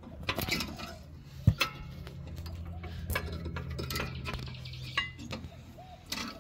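Metal clinks and taps of brake pads being seated into a rear disc brake caliper bracket, with a steady low hum through the middle.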